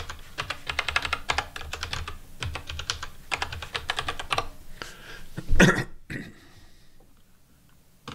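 Rapid typing on a computer keyboard, a fast run of key clicks, followed about five and a half seconds in by a single loud thump.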